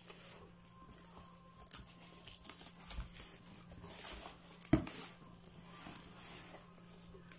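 Cardboard box flaps being pulled open and handled, with rustling and crinkling of the cardboard and the loose paper packing inside. A sharp knock about two-thirds of the way through is the loudest sound.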